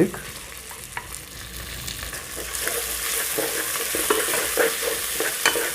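Onions and ginger-garlic frying in hot cooking oil, sizzling while being stirred, with light knocks of the stirring utensil against the pan. The sizzle grows louder about two and a half seconds in.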